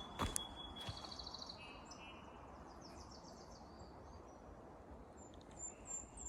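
Small forest birds chirping and trilling in short repeated phrases over the steady rush of a river, with a couple of soft clicks near the start.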